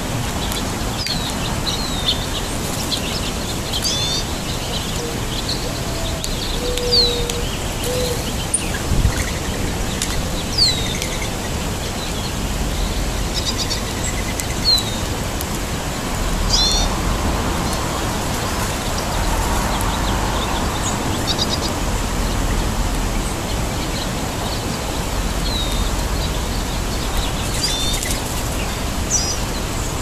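Small songbirds chirping, with short call notes scattered throughout, over a steady outdoor background hiss. A few lower whistled notes come about five to eight seconds in.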